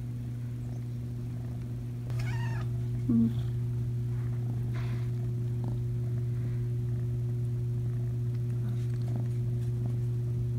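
A kitten meows briefly a couple of times, about two and three seconds in, over a steady low hum.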